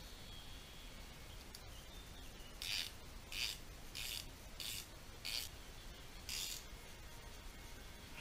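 Six short scraping strokes about half a second to a second apart, from gloved hands working an aluminium bushing-press cup and bushing parts at the bench.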